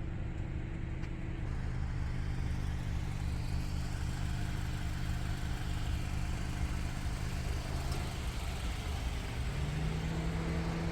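Honda CR-V engine running, heard from inside the cabin: a steady low rumble with an engine note that steps up in pitch about nine seconds in.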